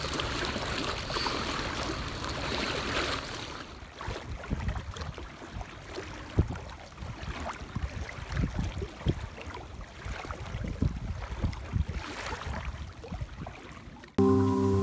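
Floodwater sloshing and splashing around a person wading through it for the first few seconds. After that comes a quieter stretch of open water ambience with scattered soft low thumps, and music comes in right at the end.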